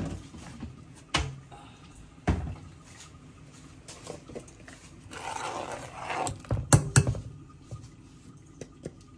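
Kitchen cooking sounds: a few separate knocks of utensils against cookware, a rush of noise lasting about a second past the middle, then two sharp clacks close together.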